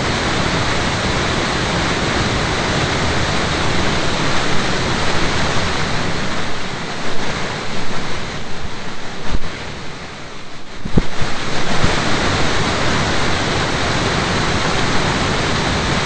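Steady rushing of a waterfall, with a brief dip and unsettled stretch about eight to eleven seconds in before the rush settles back.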